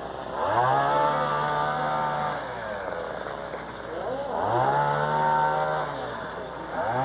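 Small gasoline engine, such as a chainsaw or other yard machine, revved up, held high for about two seconds and let back down to idle. This happens twice, and a third rev begins at the very end.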